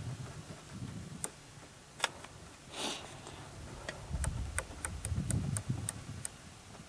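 Riflescope turret being dialled to correct the rifle's zero: a few scattered sharp clicks, then a run of about seven evenly spaced clicks, roughly three a second, in the second half, over a low rumble.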